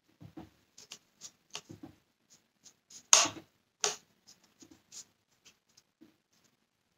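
Small plastic parts of a Dyson Cinetic cyclone unit being handled and pressed into place by hand: an irregular string of light clicks and taps, with two louder snaps about halfway through.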